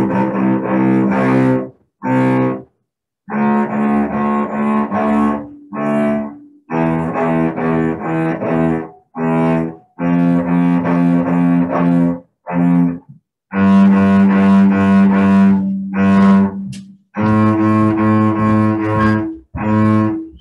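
Cello bowed, single notes played one after another with short breaks between them; one note is held longer about two-thirds of the way through.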